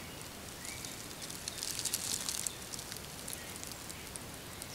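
Footsteps crunching and rustling through dry fallen leaves, a crackly scatter of small clicks that is busiest about two seconds in.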